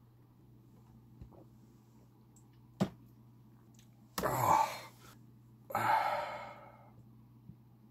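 A man gives two loud, breathy exhalations, a gasp about four seconds in and a longer sigh about six seconds in, on downing the last of a glass of PEG-lyte colonoscopy prep solution. A single sharp click comes a little before them.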